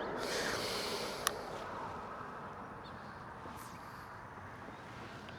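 Steady rush of passing road traffic fading away, with one sharp click about a second in.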